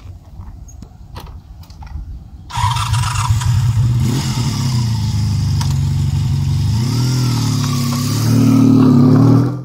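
Honda VF750F Interceptor's V4 engine running at low level with a few clicks. About two and a half seconds in, it jumps to a loud, steady engine note as the bike pulls away. The pitch dips and climbs again, gets louder near the end, then cuts off suddenly.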